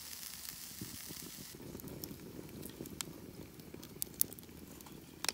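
Fire under a grill grate crackling and hissing faintly, with a few sharp pops, as a cast-iron skillet of potatoes and a pie iron cook over the flames with a light sizzle.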